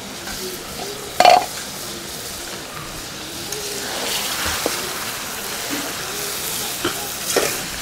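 Duck curry sizzling and frying in a karahi while a metal spatula stirs and scrapes through it, with clinks of metal on the pan. About a second in, one loud clank as the aluminium pot lid is set down.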